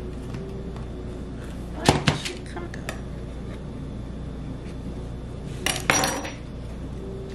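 A metal loaf pan and a knife clattering on a countertop, with two loud clanks, about two seconds in and again about six seconds in. Between them come faint knocks and scrapes as the knife is run around the inside of the pan to loosen a stuck loaf of bread.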